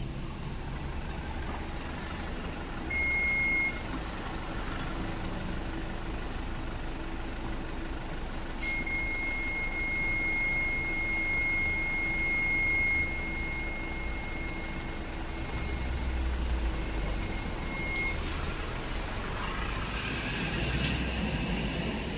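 A large vehicle's engine running close by with a low rumble and steady hum. A steady high-pitched beep sounds briefly about three seconds in, then again for about nine seconds from about nine seconds in.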